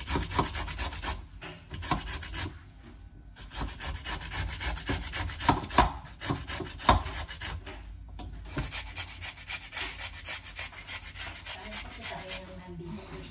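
Raw potato being grated by hand on a flat metal grater, rapid rasping strokes with short breaks about three and eight seconds in.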